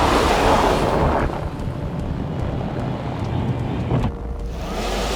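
Rescue vehicle driving: a rushing noise in the first second, then a steady low rumble, with a short knock about four seconds in.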